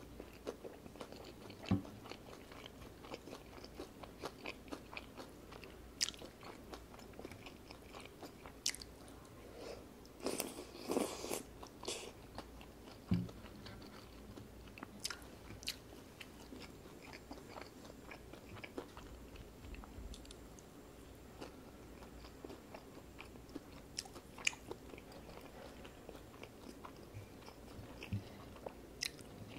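Close-miked chewing of tteokbokki: wet mouth sounds with many small sharp clicks and bites scattered throughout, and a louder, denser patch of noise about ten seconds in.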